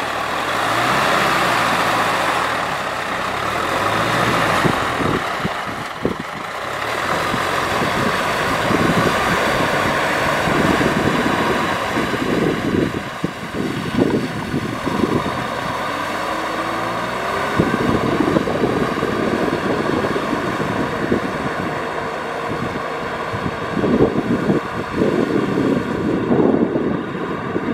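Tractor engine running steadily under load, with a brief rise in pitch a little past the middle.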